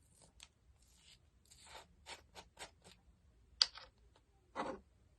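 A container and utensils being handled while an ingredient is added: short scrapes, then a quick run of clicks and taps. The loudest is a sharp click about three and a half seconds in, and a duller knock follows about a second later.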